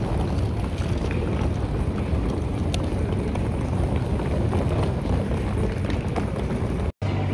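Hard-shell suitcase's wheels rolling over rough concrete pavement: a steady low rumble with a few small clicks. Near the end it cuts off abruptly and a steady low hum takes over.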